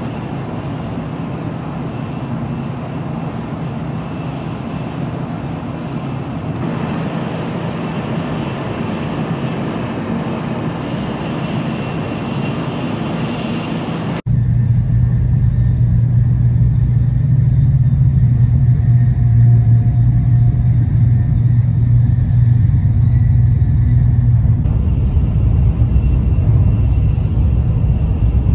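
Cabin noise of an N700A Tokaido Shinkansen running at about 280 km/h: a steady rush of running noise with a faint high whine. About halfway through, an abrupt cut switches to a louder, deeper rumble.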